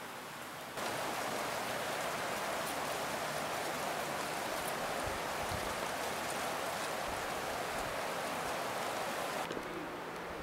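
Steady rushing of running creek water, starting abruptly about a second in and cutting off about a second before the end.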